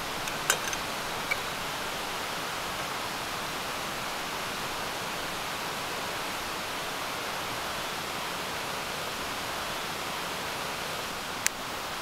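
Steady rushing of a mountain stream, with light clicks about half a second in and a sharp click near the end as a torch lighter is sparked to light a small stove.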